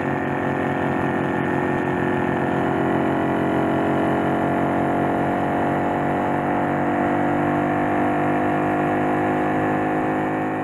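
Motorcycle engine running steadily under way, heard from the rider's seat, its pitch rising slowly as the bike pulls along.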